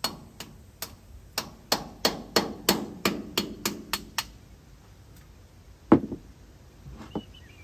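Hammer blows on metal: a quick run of about a dozen strikes over the first four seconds, then two single blows, the one about six seconds in the loudest. It is a hammer driving a wedge into the joint of a stuck cover on an International 766 tractor's hydraulics to break it free.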